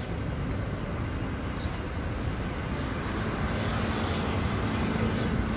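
Street traffic noise: a steady rumble of car engines and tyres, with an engine hum that comes in a few seconds in.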